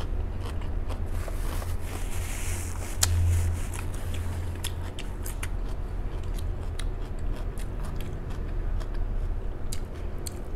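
Close-up chewing of a mouthful of crisp lettuce and onion salad: irregular crunching and sharp clicks of the mouth, over a steady low hum.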